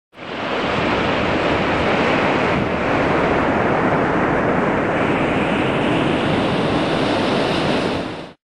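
Steady rush of ocean surf, fading in just after the start and fading out shortly before the end.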